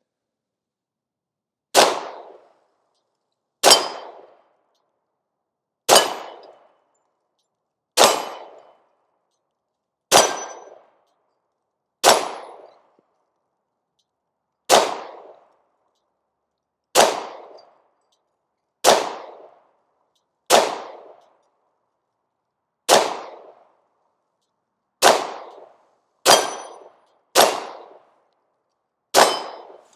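Unsuppressed 9mm Glock-clone pistol firing slow, aimed single shots: fifteen shots about two seconds apart, the last few coming quicker. Each shot has a short decaying tail.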